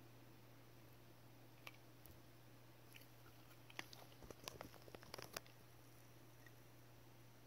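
Near silence: a steady low hum with a short cluster of faint clicks and crackles about four to five seconds in.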